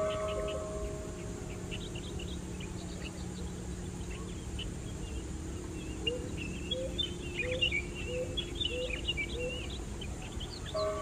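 Birds chirping, busiest in the second half, with a row of about six short rising calls about a second apart, over a faint steady low hum. A short held tone sounds at the start and again at the end.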